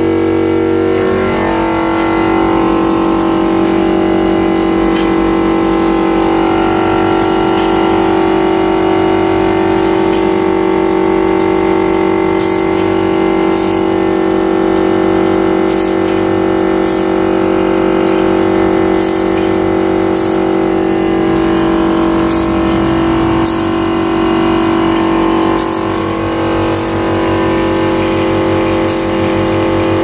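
Automatic aluminium-cap crimping machine running, its electric drive giving a steady hum and whine that rises in pitch about a second in as it speeds up after being started. From about twelve seconds in, light clicks come roughly once a second as the turret works.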